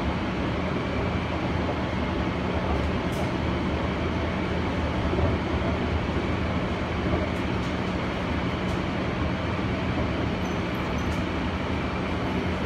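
Steady running noise of the BART Oakland Airport Connector people-mover car in motion, heard from inside the car: an even rumble of its rubber tyres on the guideway with a steady low hum.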